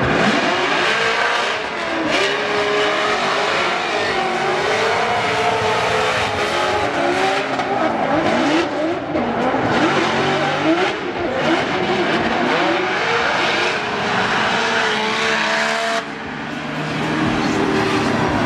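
Two drift cars tandem drifting. Their engines run at high revs, the pitch swinging up and down with the throttle, over the screech of sliding tyres. The sound dips briefly near the end, then picks up again.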